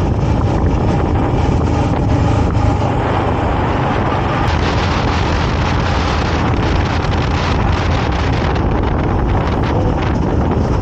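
Yamaha MT-15 motorcycle engine running steadily while riding at about 50 to 65 km/h, with heavy wind rush on the microphone.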